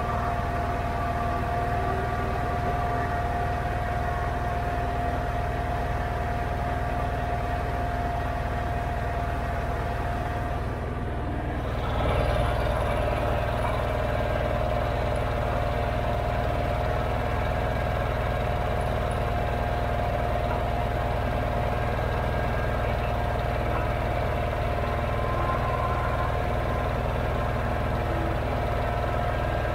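Allis-Chalmers 917 Hydro garden tractor's engine running steadily while the tractor is driven, with a steady high whine over the engine note. About twelve seconds in, the whine drops slightly in pitch and the sound briefly gets louder.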